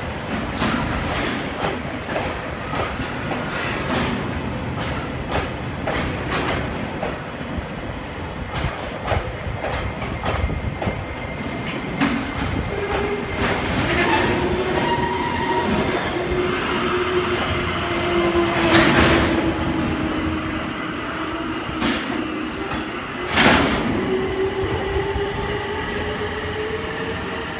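Freight train of oil tank wagons rolling past, wheels clacking rhythmically over rail joints under a steady rumble. From about halfway a sustained wheel squeal sets in, dipping slightly in pitch and then rising, with two sharp bangs late on.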